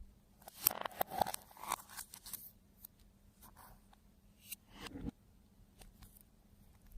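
Slime being kneaded and squeezed by hand: irregular sticky clicks and crackles, a dense flurry about a second in and another near five seconds.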